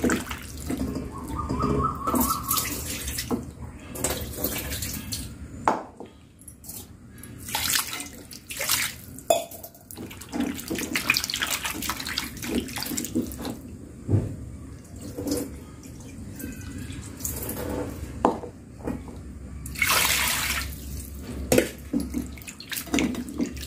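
Water sloshing and splashing as hands rub and turn small river fish in a pan of water, rinsing off a rice-flour scrub, in irregular bursts. About twenty seconds in there is a longer, louder rush of water.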